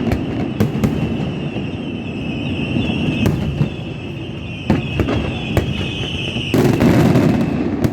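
Fireworks display: scattered sharp bangs and pops, then a dense, loud run of crackling bangs about six and a half seconds in that lasts just over a second. A steady high-pitched whistle-like sound runs underneath.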